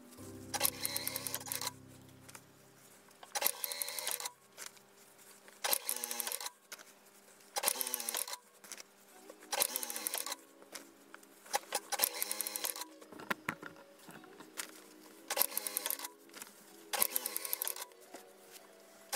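Industrial single-needle sewing machine stitching in short runs, about nine quick bursts of rapid, even needle clicking roughly two seconds apart, with brief pauses between them while the fabric is repositioned.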